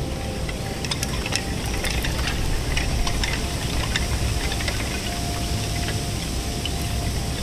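Wooden ema votive plaques clattering against one another in the wind: light, irregular clacks over a steady low rush of wind.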